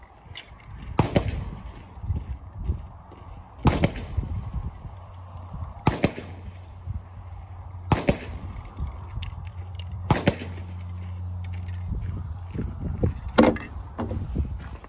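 Six pistol shots from a Taurus G3c 9mm, fired one at a time about two seconds apart in slow, deliberate practice.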